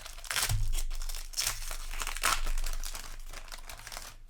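Foil wrapper of a Magic: The Gathering Jumpstart booster pack being torn open and crinkled: a run of crackling rustles, loudest in the first half, dying away near the end.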